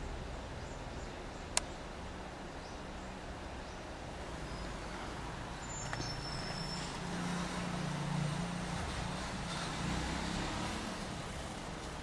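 Steady low background hum and noise, with a single sharp click about a second and a half in and a low droning hum growing a little louder in the second half.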